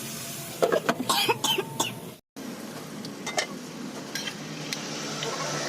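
Cooking utensils knocking and clinking against a pan in a quick run of sharp hits, cut off abruptly about two seconds in, followed by a steady hiss with a few lighter clicks.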